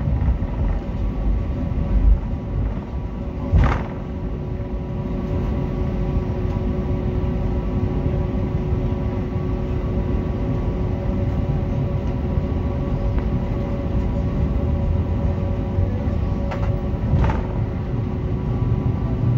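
Cabin noise of an Airbus A320-family airliner taxiing: the jet engines run at idle with a steady whine over a low rumble. Two short knocks, about four seconds in and near the end.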